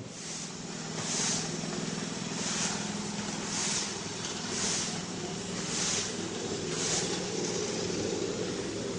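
Long-handled squeegee swishing across a coated garage floor in strokes about once a second, over a steady low hum.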